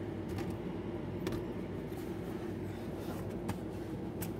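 Steady low mechanical hum with a few light, sharp clicks scattered through it.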